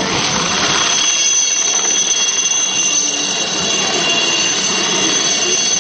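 HAL Chetak helicopter's turboshaft engine and rotor passing overhead: a steady, high-pitched turbine whine over a constant rushing noise.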